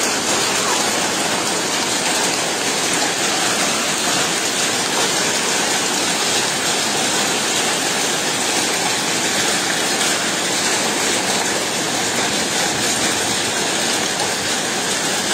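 Heavy rain mixed with hail falling on stone paving and a wooden platform, a steady, unbroken hiss.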